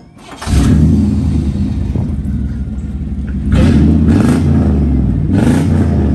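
Loud pickup-truck engine with a loud exhaust, cutting in suddenly about half a second in and then revved in several surges over a deep rumble, the strongest surges near the start and about two thirds of the way through.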